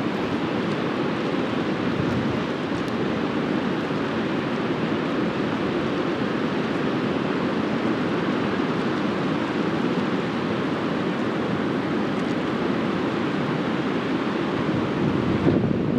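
Steady rushing of a fast-flowing river, an even wash of water noise.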